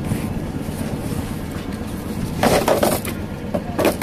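Metal fish trays clattering and scraping as they are handled in a fishing boat's hold, loudest about two and a half seconds in and again briefly near the end, over the steady drone of the boat's engine.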